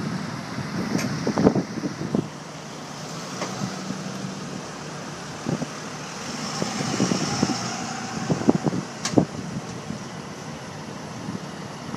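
Heavy-duty tow truck's diesel engine running steadily during the recovery, with a few sharp knocks, about a second and a half in and again around eight to nine seconds in.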